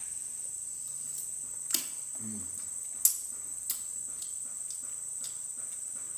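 A metal spoon clinks against a plate of porridge three times, sharp and brief, over a steady high insect chirring.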